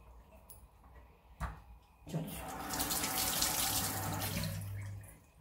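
Kitchen mixer tap turned on about two seconds in, water splashing into the sink and over a hand for about three seconds, then shut off near the end. A single short knock comes shortly before the water starts.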